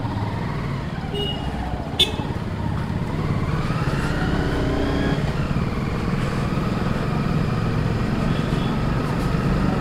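Sport motorcycle's engine running as it is ridden slowly along a street, revving up and easing off about four to five seconds in. A short sharp click about two seconds in.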